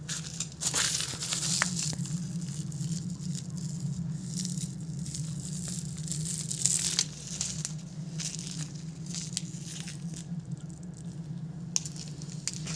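A steady low hum with irregular crackling and rustling noises over it.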